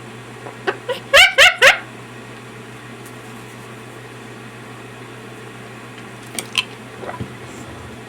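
Patagonian conure chattering: three quick, loud pitched calls about a second in, then a few soft chirps and clicks near the end, over a steady low hum.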